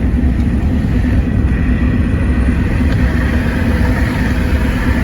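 Vehicle driving on the highway, heard from inside: a steady low rumble of road and engine noise.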